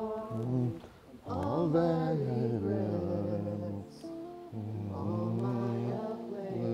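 Slow sung hymn, voices holding long drawn-out notes, with a short break about a second in.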